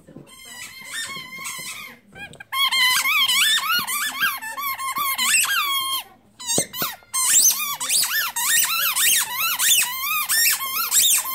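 A dog chewing a squeaky tennis-ball toy, squeezing out quick high squeaks over and over, with short breaks about two and six seconds in.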